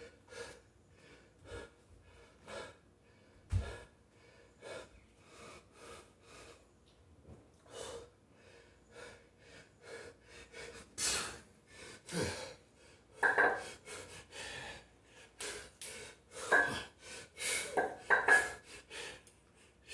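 A man breathing hard from a heavy dumbbell workout, with quick, even breaths at first and louder, forceful exhalations in the second half as he lifts. There is one dull thump about three and a half seconds in.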